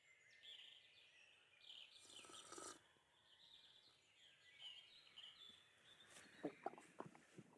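Near silence: faint background ambience with soft, scattered bird chirps.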